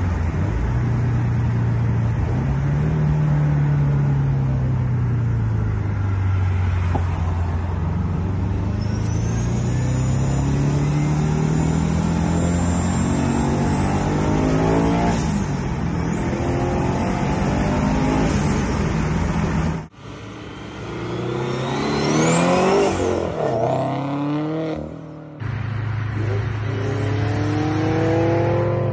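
Turbocharged 2016 Subaru BRZ's FA20 flat-four engine accelerating and shifting, its note rising and falling, with a high turbo whistle climbing over it midway. Later the revs climb steeply several times in quick succession under hard acceleration.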